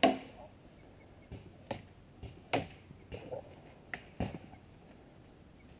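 Paintball fire: about seven sharp cracks at uneven intervals, the loudest right at the start, the rest fainter and scattered over the next four seconds.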